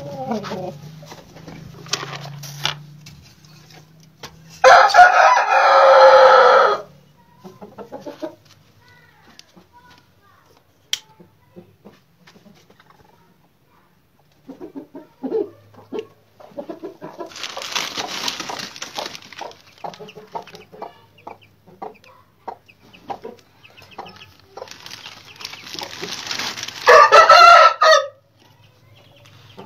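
Aseel rooster crowing twice, each crow about two seconds long, one about five seconds in and one near the end, with softer clucking and rustling between.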